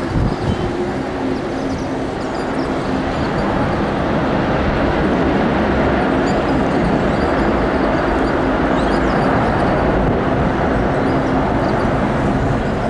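Jet aircraft engine noise with a faint steady hum in it, swelling slowly and easing a little near the end, as a plane passes close by.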